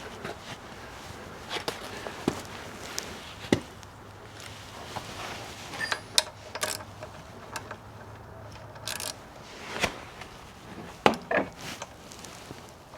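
Irregular clicks and knocks of hand tools and metal parts being handled while working on a motorcycle's front brake calipers, with a cluster of sharper knocks a little after the middle.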